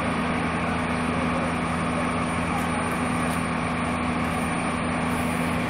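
A vehicle engine running steadily: a constant hum with steady low tones that does not change.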